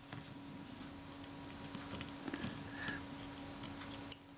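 Faint, irregular small clicks and taps of metal tweezers and tiny parts on a Synchro-Compur leaf shutter as it is taken apart, over a faint steady hum.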